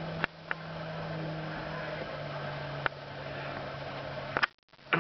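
A steady low motor hum, with a few sharp clicks scattered through it; the sound drops out briefly just before the end.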